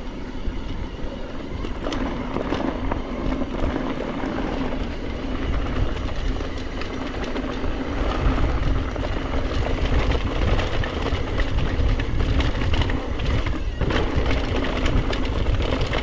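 Mountain bike riding downhill on a dirt trail: wind rumbling on the microphone, with tyres on dirt and the bike's frame and chain rattling and clicking over rough ground. The wind rumble grows heavier about halfway through as speed builds.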